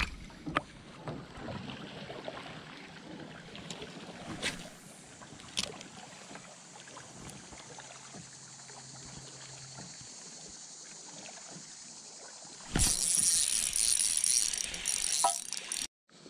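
Spinning reel being cranked in a faint mechanical whir, with a few sharp knocks near the start. Then, with about three seconds to go, a loud stretch of splashing as a hooked smallmouth bass thrashes at the surface beside the boat and is landed.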